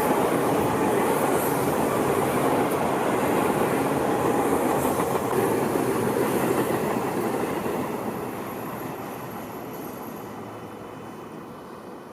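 Tobu Tojo Line electric train running along the line, a steady rumble of wheels on rail that fades away from about eight seconds in as it moves off.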